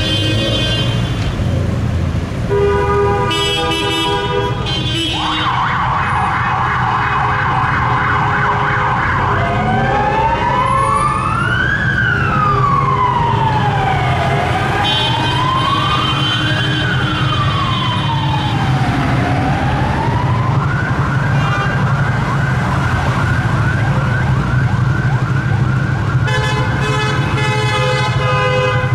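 Police vehicle sirens. First a two-tone Martinshorn, then an electronic yelp warbling fast for a few seconds, then a wail rising and falling in slow sweeps, and from about two-thirds of the way through a steady held high tone. Traffic rumbles underneath.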